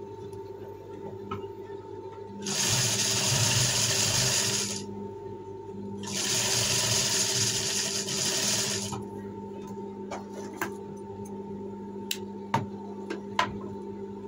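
Industrial sewing machine stitching cord piping onto fabric in two fast runs, the first of about two seconds and the second of about three, over a steady electric hum. A few sharp clicks follow near the end.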